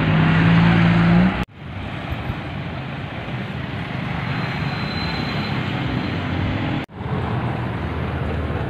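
Street traffic: a nearby vehicle engine hums steadily for about the first second, then the audio drops out abruptly and a steady din of passing vehicles follows. The sound cuts out again briefly near the end.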